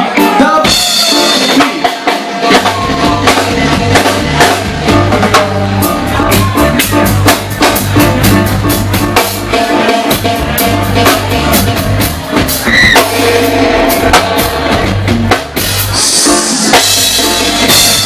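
Live reggae band playing an instrumental passage: drum kit and electric guitar, with the bass coming in about two and a half seconds in.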